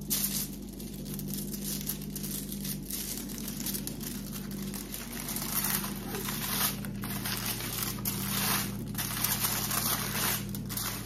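Aluminium foil crinkling and rustling as hands roll and fold it tightly around a wrap, coming and going, over a steady low hum.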